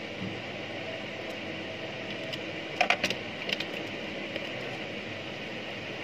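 Small clicks and taps of a bare phone circuit board and multimeter test probes being handled on a workbench, a quick cluster of them about three seconds in, over a steady background hum.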